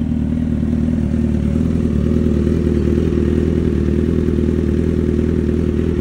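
Suzuki GSX-R1000's inline-four engine idling steadily as it warms up on freshly fitted spark plugs, being checked for a misfire.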